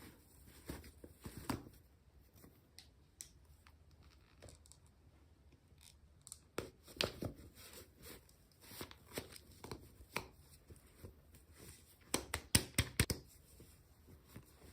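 Hands unboxing small toy packaging: faint scattered rustling and tearing with small clicks, then a quick run of sharper clicks near the end.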